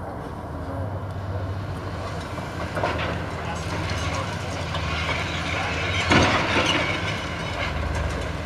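Hydraulic excavator's diesel engine running steadily while its demolition crusher jaw bites into a concrete floor slab, breaking concrete with crunching and cracking. A sharp crack comes about three seconds in and the loudest crunching around six seconds in.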